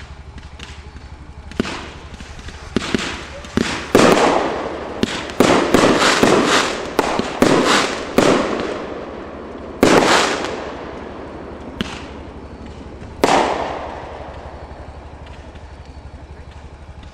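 Aerial fireworks bursting overhead: a rapid, irregular volley of sharp bangs, each trailing off in a fading echo, thickest a few seconds in, with a final lone burst past the middle.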